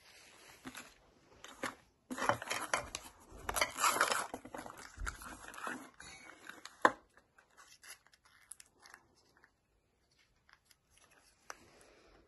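Crinkling and tearing of thin plastic wrapping while a 5 Surprise Mini Brands toy capsule is opened by hand, with clicks from its plastic capsule pieces. The crackling is loudest in the first half, a single sharp click comes about seven seconds in, and light clicks and rustles follow.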